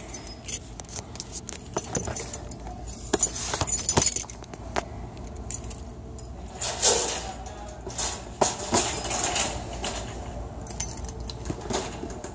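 Wire shopping cart rattling and clinking as it is pushed and handled, with sharp metallic clicks. Later there is scraping and rustling as the cardboard shipping case in the cart is handled to open it.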